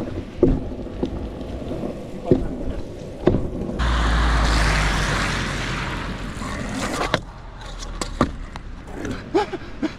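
Stunt scooter wheels rolling on wet asphalt with scattered knocks and clatters. About four seconds in, a pickup truck's tyres hiss past on the wet road with a low rumble, fading over a few seconds, followed by sharp clacks of the scooter deck near the end.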